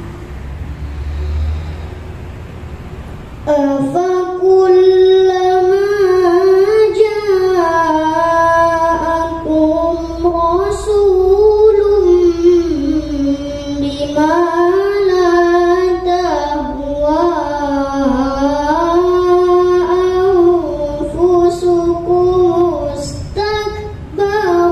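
A young girl's voice reciting the Quran in the melodic tilawah style, in maqam Hijaz. It begins about three and a half seconds in and carries long held notes that waver and slide up and down, broken by short pauses for breath.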